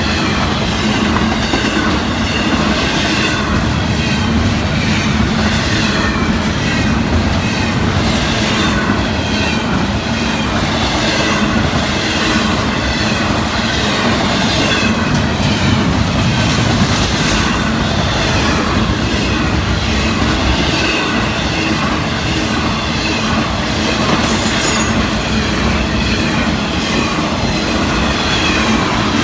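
Florida East Coast Railway intermodal freight train rolling past at steady speed, its wheels clacking over the rail joints with a constant rumble.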